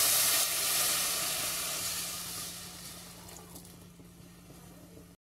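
Water poured into a hot pot of garlic browned in oil: a loud sizzling hiss as it hits the hot fat, fading away steadily over about four seconds.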